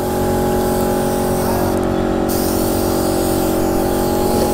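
Compressed-air paint spray gun hissing steadily as a second coat of black paint goes onto a motorcycle rear panel, over a steady hum.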